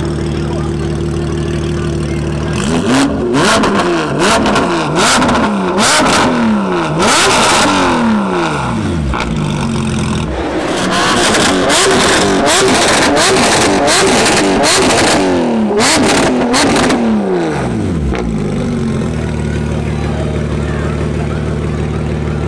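Porsche 992 GT3 RS's naturally aspirated flat-six on a straight-piped Soul exhaust, very loud: idling, then revved in a long run of quick throttle blips with sharp cracks among them, then settling back to idle a few seconds before the end.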